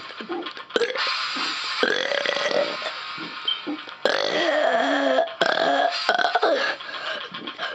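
A person burping several long, drawn-out burps one after another, their pitch wavering.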